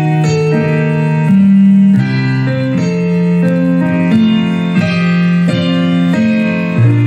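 Piano music: chords changing about once a second over long held bass notes.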